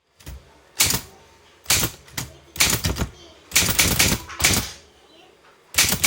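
Typewriter keys striking in uneven runs of sharp clacks, several strokes close together and then short pauses.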